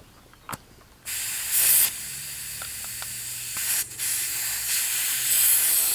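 Compressed air hissing out of a motorcycle tyre through the valve head of a compressor tyre-inflator gun. The hiss starts about a second in, dips briefly near four seconds and cuts off sharply at the end, as the tyre loses pressure and the gauge falls.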